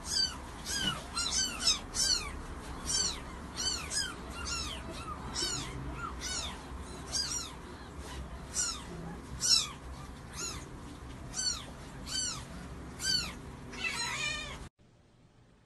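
A very young kitten mewing over and over: short, high-pitched cries that rise and fall, about one and a half a second, stopping suddenly near the end.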